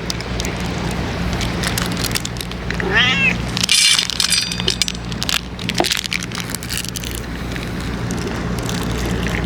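A stray cat meows once, a short falling call about three seconds in. Scattered clicks and a steady low hum run underneath.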